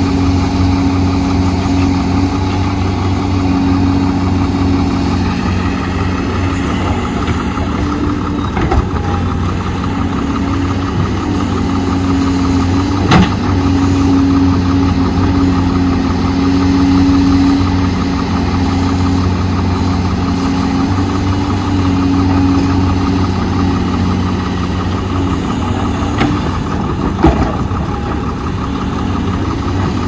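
Diesel engine of heavy earthmoving machinery running steadily at an even pitch, with a few sharp knocks, the loudest about thirteen seconds in.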